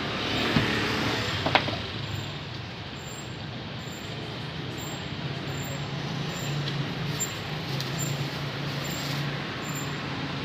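Steady street background with traffic, and a short metallic clink of serving tongs about a second and a half in.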